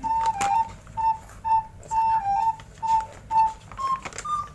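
Background music: a simple whistle-like melody of short, evenly spaced notes, about two a second.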